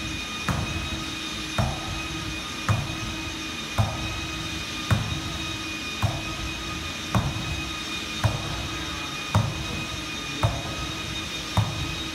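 Large ski treadmill belt running with a steady motor whine. A sharp tap comes about once a second as the roller-ski poles strike the moving belt in a double-poling rhythm.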